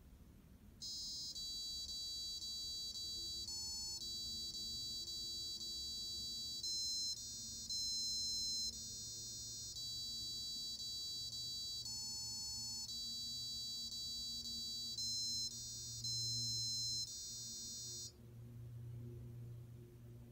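A small electronic buzzer in an automatic LED menorah plays a tune in high, thin beeps of varying length. It starts about a second in and stops abruptly near the end, over a faint low hum.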